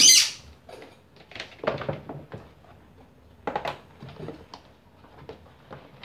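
Plastic body of an Arno table fan being handled and tipped onto its side on a wooden bench: scattered light knocks, clicks and creaks of the plastic housing.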